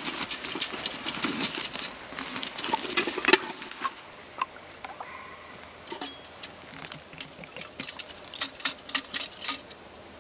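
Handling noises of camp gear: rustling of clothing and kit with many small clicks and taps, busiest in the first four seconds, with one sharp knock a little over three seconds in, then fewer, scattered taps.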